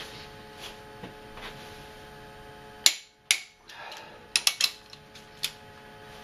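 Click-type torque wrench set to 90 foot-pounds working on the cylinder head bolts of a Mercedes M104 engine. There is one sharp click about three seconds in and another just after, then a quick run of clicks about a second later. The wrench clicks over as each bolt is found to be already at torque.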